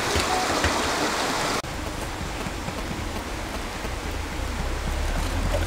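Steady hiss of running stream water. About a second and a half in, the sound drops abruptly to a quieter hiss with a low hum underneath and a few small ticks.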